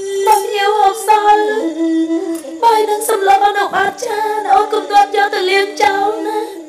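Bassac opera singing: a voice sings a bending, heavily ornamented melody over instrumental accompaniment that holds a steady low tone and is punctuated by sharp percussion strikes.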